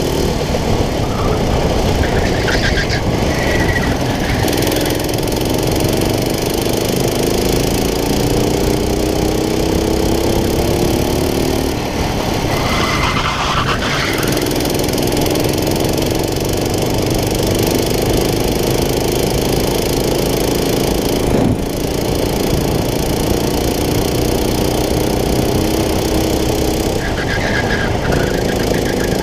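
Racing kart engine heard onboard at full throttle, its pitch climbing steadily as it accelerates out of each corner and dropping back sharply when the driver lifts and brakes, about three times over.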